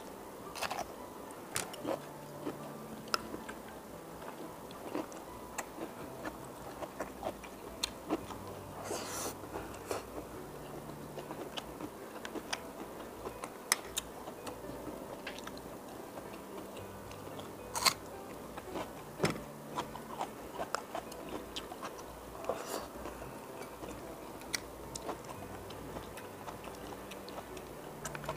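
Close-miked eating sounds: crunching bites of raw cucumber and chewing, with many short wet mouth clicks and smacks scattered irregularly.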